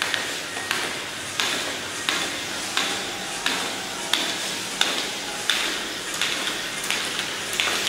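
Homemade DC-motor walking robot's curved wooden-strip legs tapping on a hard stone floor in a steady rhythm, about three taps every two seconds, over the steady hum of its small geared motor.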